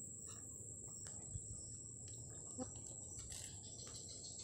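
Insects chirring in one steady high-pitched tone, with a few faint knocks and rustles from a net fish trap being handled.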